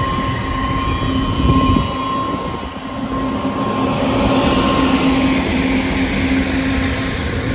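Grain dryer fan running with its burner lit, drying down wet soybeans: a steady hum under a rush of air that swells about three to four seconds in.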